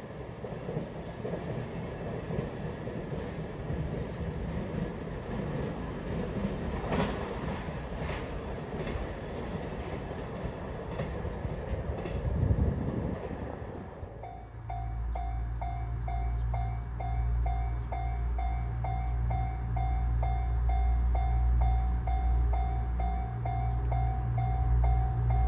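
A train running over the rails with a clickety-clack of wheels over rail joints. About halfway through this gives way to a steady low rumble from the train and a level crossing warning bell ringing evenly about twice a second.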